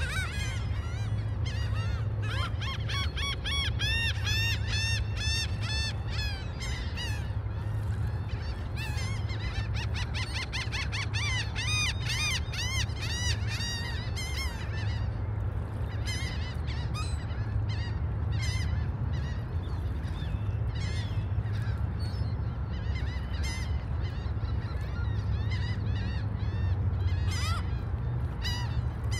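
A flock of gulls calling over and over, many short arched cries overlapping, thick for the first half and thinning out after about halfway. A steady low rumble runs underneath.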